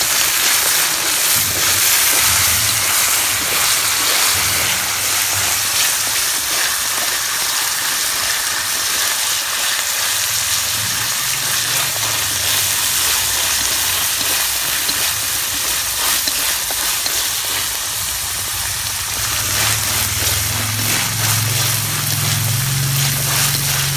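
Corn kernels sizzling in hot oil in a wok, a dense steady hiss, stirred with chopsticks.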